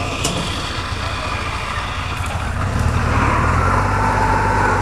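Engine of a loaded tracked rice-hauling carrier running as it drives across the harvested paddy, getting louder about three seconds in as it comes closer, with a higher whine joining near the end.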